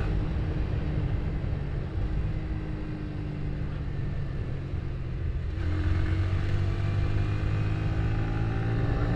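Yamaha Vixion R's 155 cc single-cylinder engine running while riding. Its note sags slightly over the first five seconds, then about five and a half seconds in it grows louder and rises in pitch as the bike pulls harder.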